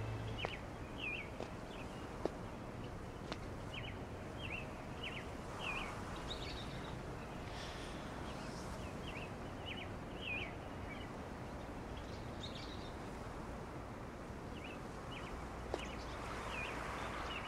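Birds chirping over a steady outdoor background noise, short high chirps coming every second or so, with a few faint clicks.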